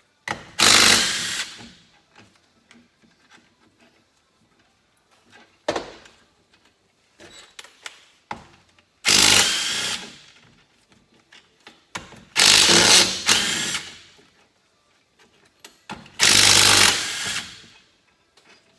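DeWalt cordless impact driver spinning crankcase bolts out of a Suzuki GT500 engine case in five short bursts of about a second each, with a few small knocks between them.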